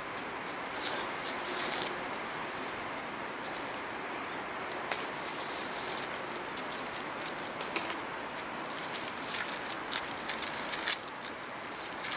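Tent fabric rustling, with light clicks and taps as the tent's walls and straps are handled, over a steady hiss. The clicks cluster near the end.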